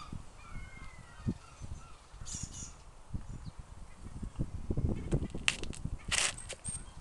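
Durian's spiky husk being pried apart by hand: uneven rustling and creaking of the tough rind, with sharp cracks as it splits a little over two seconds in and several more between about five and six and a half seconds in.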